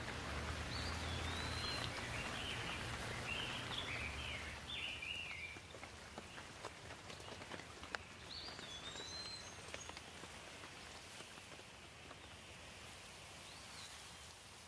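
Steady rain falling, with scattered drops dripping. A bird chirps in a run of short notes over the first few seconds and again about nine seconds in, and the rain fades out near the end.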